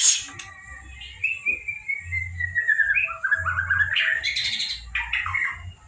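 Young white-rumped shama (murai batu) in its spotted juvenile 'trotol' stage, singing. It gives a sharp note, then a quick run of notes sliding down in pitch, then rising notes and sharper calls near the end.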